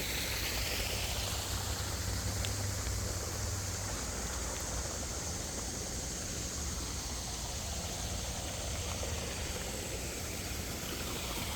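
Koi pond waterfall running: a steady rush of falling water.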